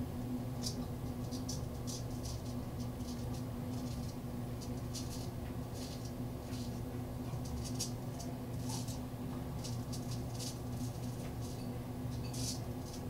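Straight razor scraping whiskers off a lathered chin in many short strokes, each a brief scratchy rasp, irregularly spaced, over a steady low hum.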